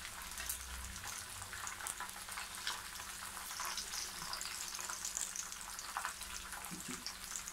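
Marinated chargha chicken shallow-frying in hot oil in a pot, sizzling steadily with many small crackles. The chicken has fried for about 20 minutes and is fully cooked.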